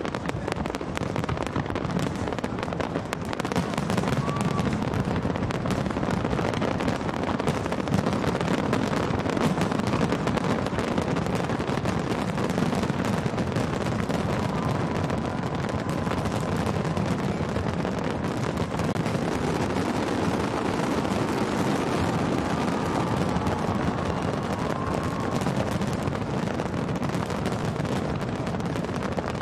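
Aerial fireworks display, many shells bursting and crackling in quick, overlapping succession. The display gets louder a few seconds in and keeps going without a break.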